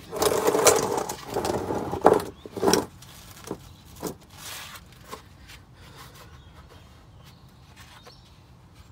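A plastic oil drain pan scraping and dragging across asphalt as it is slid under the car, loudest in the first three seconds, followed by a few light knocks as it is set in place.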